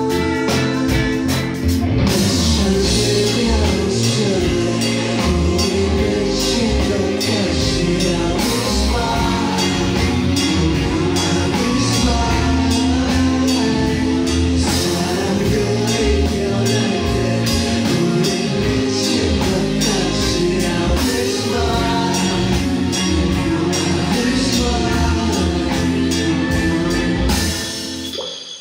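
Live rock band playing a song, with drum kit and electric bass driving it. The band stops together about a second before the end, leaving a brief ring.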